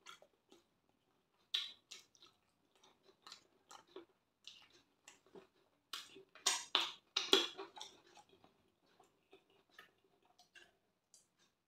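Close-up chewing and wet mouth sounds of someone eating rice and stew by hand: irregular smacks and clicks, loudest and thickest a little past the middle.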